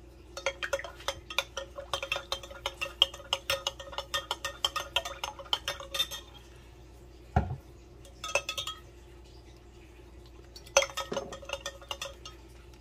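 Metal spoon clinking rapidly against the sides of a glass measuring cup while stirring a liquid sauce, for about six seconds. A single dull thump follows, then two short bursts of stirring clinks.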